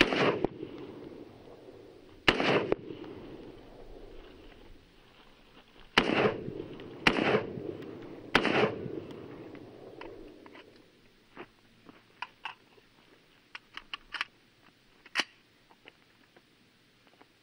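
AR-15 rifle firing .223 rounds: five single shots at uneven intervals over the first nine seconds, each trailing off in an echo. After that only faint, short clicks.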